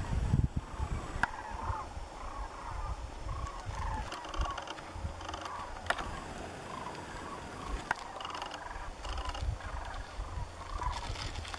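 A flock of sandhill cranes calling overhead: many rolling, rattling bugle calls overlapping and repeating. A low rumble of wind on the microphone is heard near the start.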